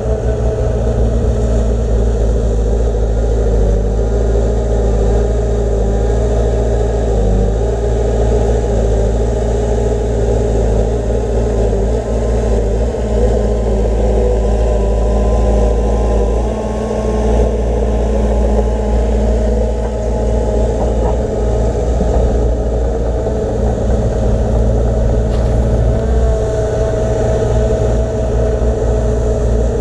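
Diesel engine of heavy earthmoving machinery running steadily, with a strong low hum and a mid-pitched whine held at an even pitch.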